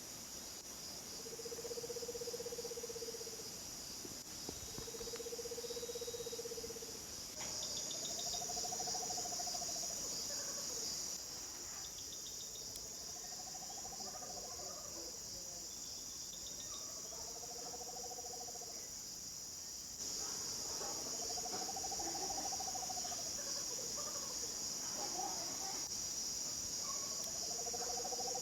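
Puerto Rican screech owls (múcaro) calling. Each call is a trill that rises and falls, about a second and a half long, repeated every few seconds. About a quarter of the way in, a second, higher-pitched call joins and overlaps the first, all over a steady high chorus of crickets.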